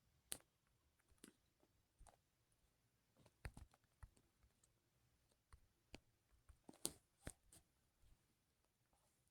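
Faint, irregular clicks and taps, about a dozen, scattered unevenly; the sharpest come about a third of a second in and around seven seconds in.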